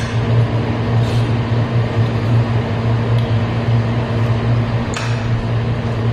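Steady low mechanical hum, like an appliance or air-conditioning unit running, with a few light clinks of a fork and spoon against a plate: at the start, about a second in and about five seconds in.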